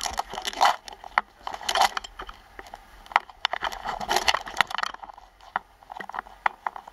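Skis scraping and crackling over hard-packed piste snow during a run, with many sharp clicks and rattles; it quietens after about five seconds, leaving scattered clicks.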